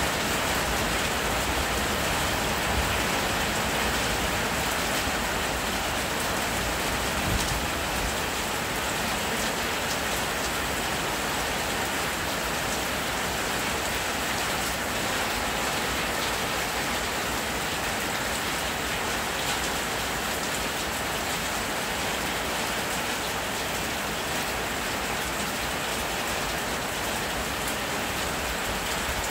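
Loud, steady rain, with water pouring off the edge of a porch roof.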